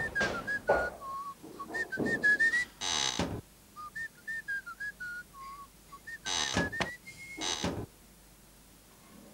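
A whistled tune of short notes stepping up and down, with a few brief swishing noises in between.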